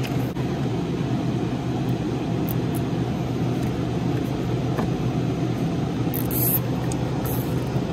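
Steady low mechanical hum with a noise bed throughout. A brief rasp of a nylon cable tie being pulled tight through its ratchet comes about six seconds in, with a few small clicks of handling wires.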